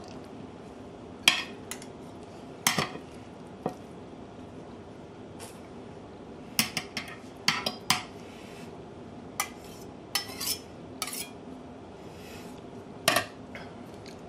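Metal knife and spatula clinking and scraping against a plate, in scattered sharp knocks a second or so apart, over a faint steady hum.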